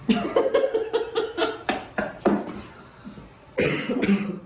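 Men laughing in a quick run of short bursts, then a louder burst about three and a half seconds in.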